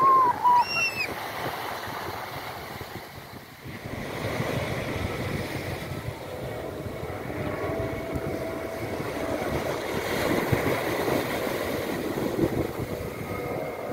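Small waves breaking and washing up on a sandy beach, with wind buffeting the microphone. A brief high-pitched cry comes right at the start.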